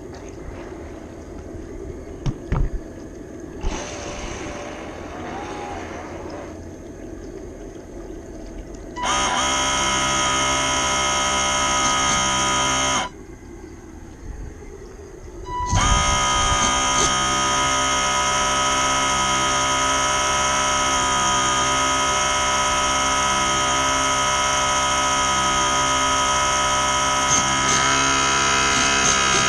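Small electric motor of a radio-controlled model running with a steady, high, buzzing whine. It cuts in about a third of the way through, stops for a couple of seconds, then runs on steadily.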